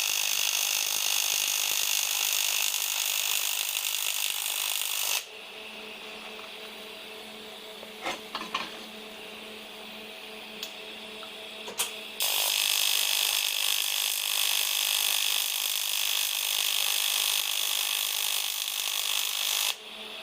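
Welding arc laying a bead on an aluminium dash mount: a loud, steady buzzing hiss that stops about five seconds in and starts again about twelve seconds in, stopping near the end. In the gap there is a steady low hum and a few small clicks.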